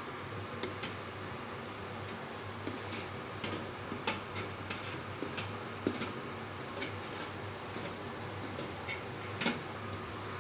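Wooden spatula scraping and tapping against a stainless steel steamer tray while turning steamed glutinous rice: light irregular clicks over a steady hiss.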